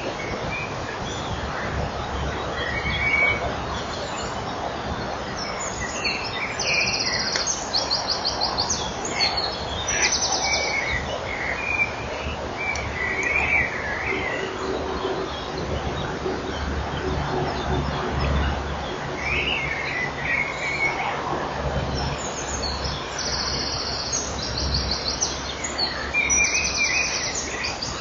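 Birds chirping over a steady hiss, with two spells of rapid, high, pulsed trilling, one about seven seconds in and another near the end.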